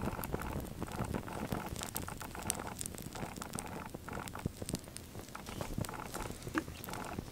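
Flames crackling on two burning toy model cars: a steady crackle scattered with sharp little pops, a bit louder at first and settling lower as the flames die down.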